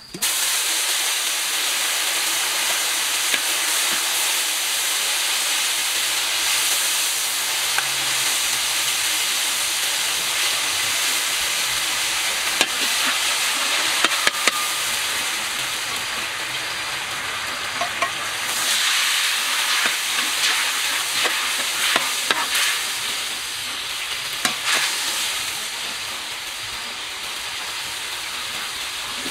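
Garlic sizzling steadily in hot oil in a steel wok, starting suddenly and staying loud, with a spatula scraping and clicking against the wok as it is stirred.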